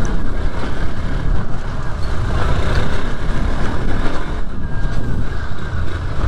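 Hero Xpulse 200 4V motorcycle ridden over a wet, rough road in heavy rain: a steady rush of wind and rain on the helmet camera, with the single-cylinder engine running beneath it.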